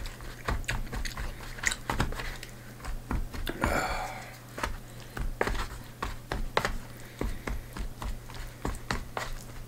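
A person eating: chewing, with many small clicks and scrapes of a spoon working in a plastic bento tray, and a short breathy noise about four seconds in.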